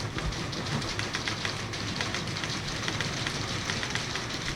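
A classroom full of typewriters clattering at once, many keys striking in a dense, irregular patter during a one-minute timed typing drill.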